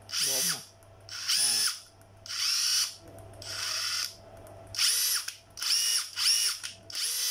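Makita TD170 cordless brushless impact driver run free in reverse with seven short trigger pulls, about one a second. Each pull is a brief whine that drops away as the trigger is let go.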